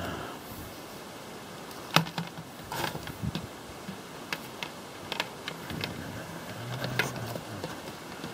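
Scattered clicks and light knocks of cables and plugs being handled and shifted on a shelf, the sharpest about two seconds in, over a steady background hiss.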